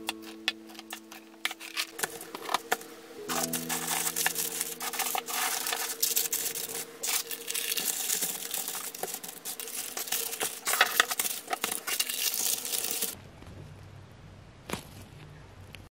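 Paper baking cups and plastic packaging trays rustling and crinkling as macarons are handled and packed, with many small clicks of plastic. It is busiest through the middle and drops to a quiet room hum for the last few seconds.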